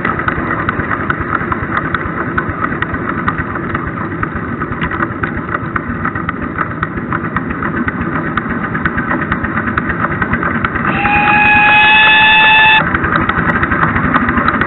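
7¼ inch gauge model GWR King class 4-6-0 locomotive running, with a rapid steady beat. About eleven seconds in it sounds its whistle, one slightly rising note lasting about two seconds that cuts off sharply.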